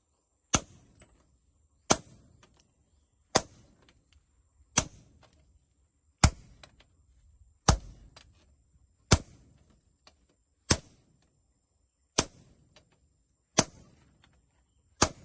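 Blacksmith's hand hammer striking steel on an anvil while forging a knife blade: single sharp metallic blows at a slow, even pace, about one every second and a half, each with a brief high ring.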